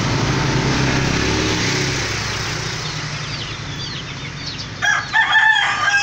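Yamaha RX-King's two-stroke single-cylinder engine running, easing off a little after about two seconds. About five seconds in, a rooster crows loudly over it.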